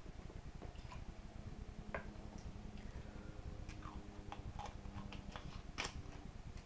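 Scattered faint clicks and taps of plastic water bottles and a bottle cap being handled, the sharpest click near the end, over a low steady hum.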